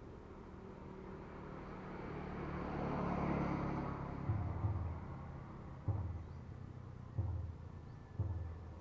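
A motor vehicle passes by, its noise swelling to a peak about three seconds in and then fading. This is followed by a series of sudden low thumps at intervals of about a second.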